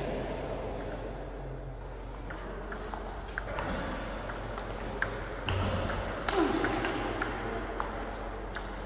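Table tennis rally: the ball clicking back and forth off the bats and the table, about two hits a second, with a couple of heavier thumps past the middle.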